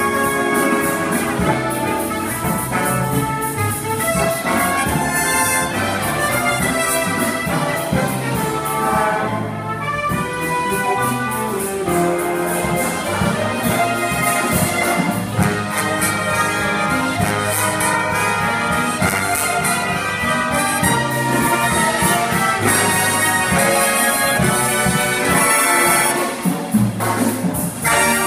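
Jazz big band playing live: a full saxophone, trumpet and trombone section over a rhythm section of piano, upright bass and guitar.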